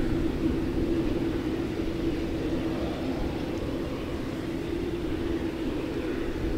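Boeing 787-9 airliner's jet engines running steadily, a level hum over an uneven low rumble.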